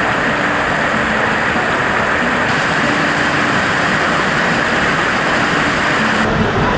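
Zapata Falls, a waterfall, rushing with a steady, loud roar of falling water.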